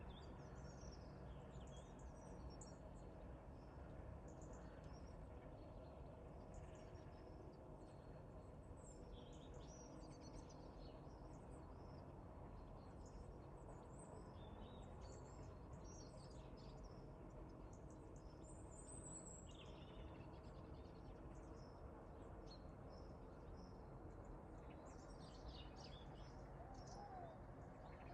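Faint birdsong: many small birds chirping in short scattered calls over a steady low background noise.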